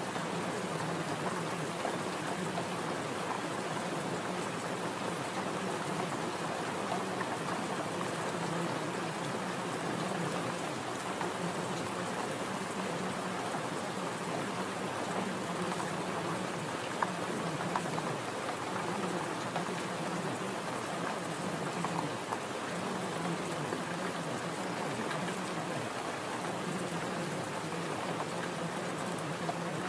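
Recorded rain: steady, even rainfall with a patter of drops.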